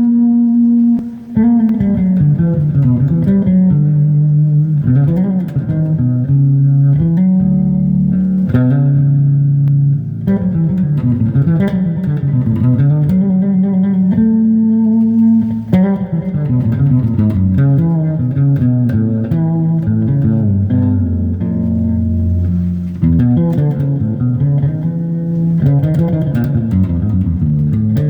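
Fretless bass guitar being played: a continuous line of low plucked notes, with frequent sliding glides in pitch from one note to the next.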